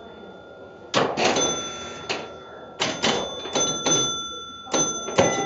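1966 Gottlieb Cross Town electromechanical pinball machine in play: a run of sharp mechanical clacks from its flippers, bumpers and scoring mechanism starting about a second in, each set off by ringing scoring tones that hang on between hits.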